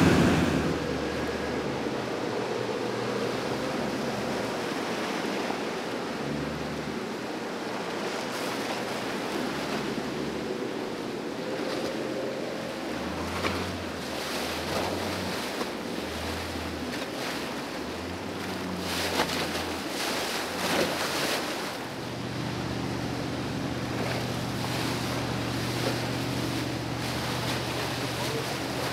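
Rough, churning water rushing and splashing around powerboats running through strong current, with the low hum of their engines and some wind on the microphone. A steadier low engine drone comes in about three-quarters of the way through.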